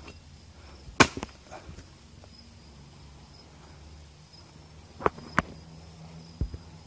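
A machete chopping into the hard, woody shell of a calabash-tree fruit (Crescentia cujete): one sharp chop about a second in, with small cracks of the shell just after it. Two lighter knocks follow about five seconds in, over a steady high insect drone.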